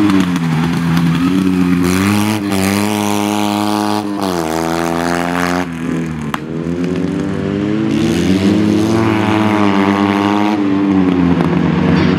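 Fiat 126p rally car's two-cylinder engine revving hard under acceleration, its pitch climbing and dropping back about three times through gear changes.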